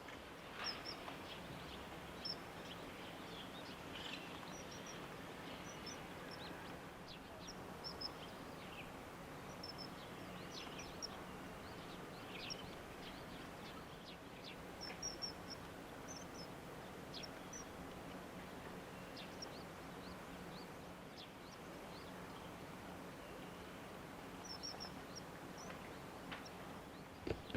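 Small birds giving short, high chirps, often two or three in quick succession, repeated on and off, over a steady background hiss.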